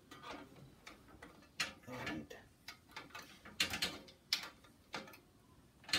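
Irregular small metallic clicks and scrapes of a wrench tightening a fitting on the steel lever-extension rod of a sewing machine's clutch-motor linkage.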